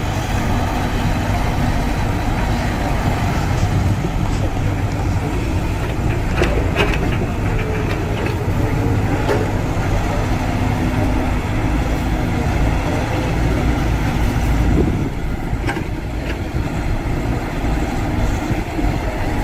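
Diesel engine of heavy earthmoving machinery running steadily, with a few sharp knocks along the way.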